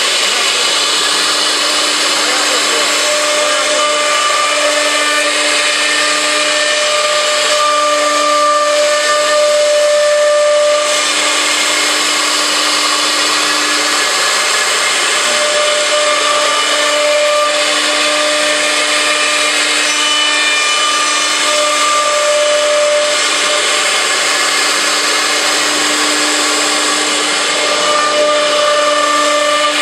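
Four-spindle CNC router cutting a wood panel: a steady spindle whine over the rasp of the router bit through the board, swelling and easing slightly as the cut goes on.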